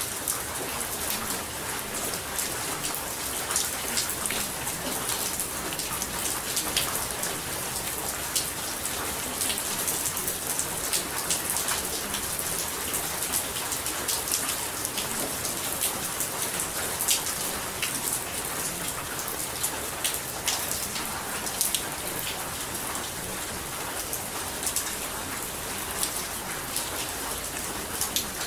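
Steady rain falling, with many small drop impacts ticking on a surface over a continuous hiss.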